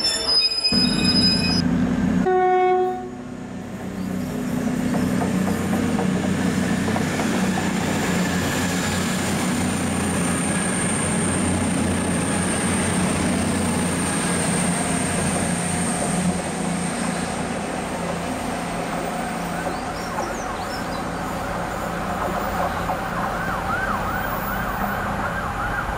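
Diesel train at a station: a high-pitched squeal for the first couple of seconds stops suddenly, then a steady rumble and engine drone of the train running through.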